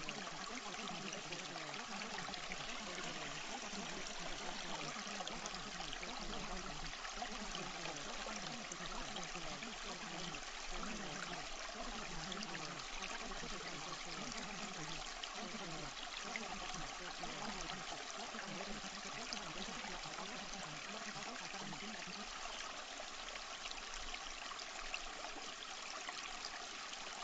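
Running water from a babbling stream, a steady trickling and gurgling that does not change. It is the masking sound bed of a subliminal audio track.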